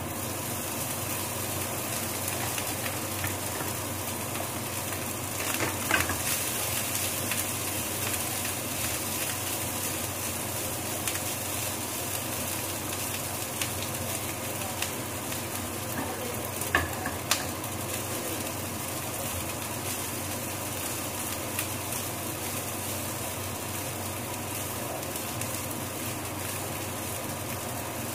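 Cooked rice sizzling and frying in a hot pan as it is stirred and turned with a utensil. The utensil knocks sharply against the pan once about six seconds in and twice around seventeen seconds.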